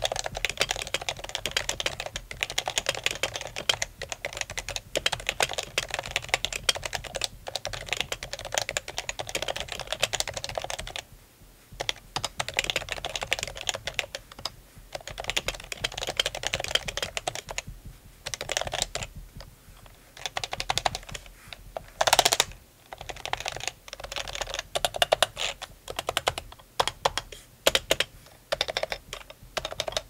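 Typing on a stock, non-silenced HHKB Professional 2 keyboard with Topre switches, a very clacky sound from the rapid keystrokes. Fast, continuous typing runs for about the first ten seconds, then comes in shorter bursts separated by brief pauses.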